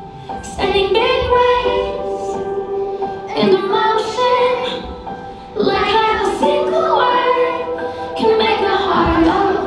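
Children singing a song with musical accompaniment, in phrases that break off and start again every second or two.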